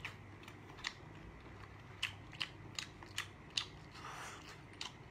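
Close-up mouth sounds of eating boiled octopus: a run of sharp, wet smacking clicks about every half second, with a soft slurp about four seconds in.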